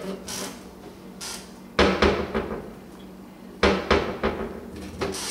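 A wooden kitchen cabinet door bangs shut twice, about two seconds in and again near four seconds, each bang followed by a few smaller knocks and rattles, as a toddler inside the cabinet pulls at it.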